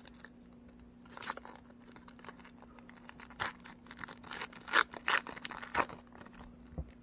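Foil trading-card pack wrapper being torn open and crinkled by hand, in irregular bursts of crinkling that are loudest in the middle. A single low knock comes near the end.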